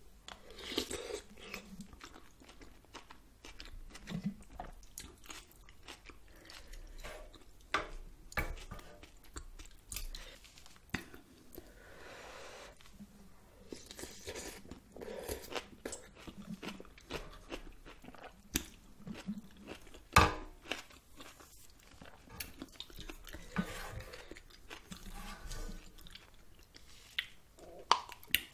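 A person chewing noodle soup close to the microphone, with wet mouth clicks and smacks at irregular moments.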